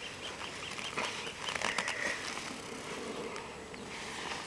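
A few faint clicks of a flathead screwdriver turning a stiff pipe-clamp screw, over a quiet outdoor background.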